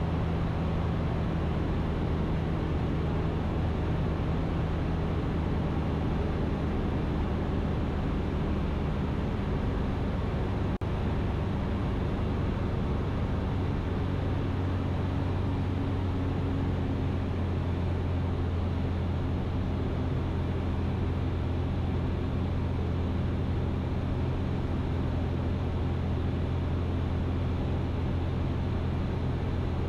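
Ikarus C42 microlight's engine and propeller running steadily in flight, a low drone. A single click about eleven seconds in, after which the drone's tone shifts slightly.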